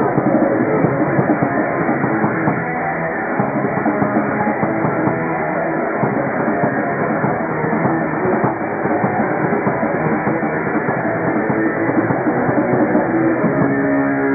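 Live rock band playing loud, with electric guitar and drum kit. Near the end the playing gives way to a steady held note.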